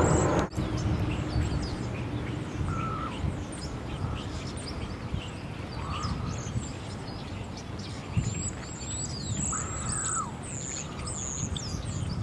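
Many small birds chirping and whistling, with a few longer arching calls, over a steady low rumble of outdoor background noise. A louder burst of noise at the start cuts off sharply about half a second in.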